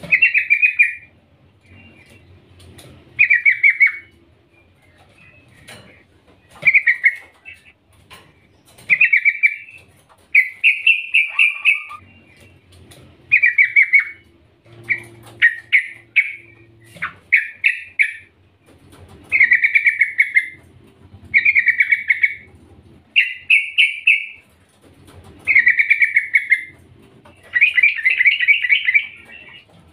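Yellow-vented bulbul calling: about fifteen short phrases of rapid chattering notes, one every one to two seconds. The uploader presents it as a female calling to a male, a call used to stir males into song.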